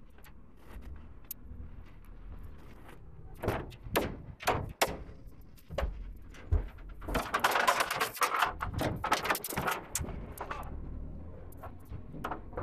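A ladder being handled in a work van: a few sharp knocks and clunks, then a few seconds of rattling and scraping about halfway through.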